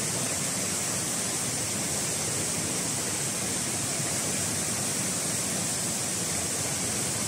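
Fast-flowing river water rushing steadily, an even unbroken roar with a strong high hiss.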